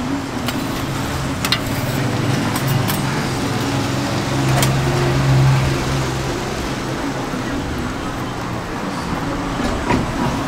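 Steady low mechanical hum over a noisy background, swelling a little midway, with a few sharp clicks in the first few seconds and another near the end.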